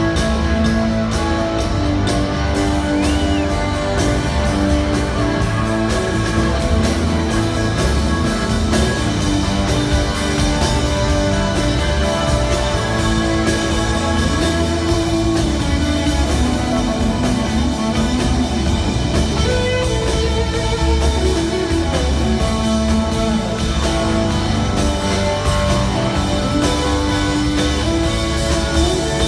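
Live rock band playing: a Stratocaster-style electric guitar holding and changing notes over a drum kit.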